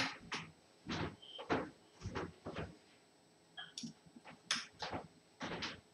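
A series of irregular light knocks and clicks, about a dozen short strikes spread over several seconds.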